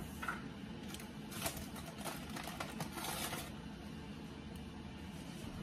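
Rustling and light scraping with a quick patter of soft clicks for about two seconds in the middle, as dry masa harina is scooped to stiffen a dough that came out too wet.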